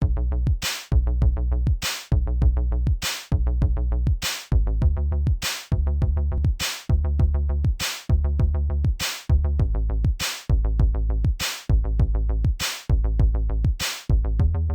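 Electronic music with a heavy synth bass line and a sharp drum-machine hit about every 1.2 seconds.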